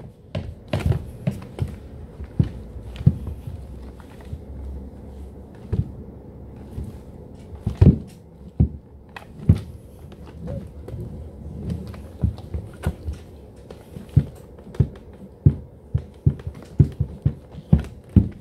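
Electric skateboard on a wooden floor, its deck and 107 mm wheels knocking and thudding in a quick, irregular series as the rider rocks his weight side to side over the trucks.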